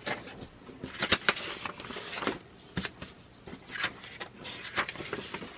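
Small parts being handled and fitted together: scattered, irregular clicks and taps with some rustling.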